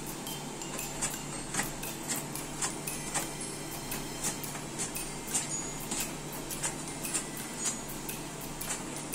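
Lotus stem being sliced into chips on a handheld plastic slicer (mandoline): a run of short, sharp cutting strokes, about two a second, as the piece is pushed across the blade.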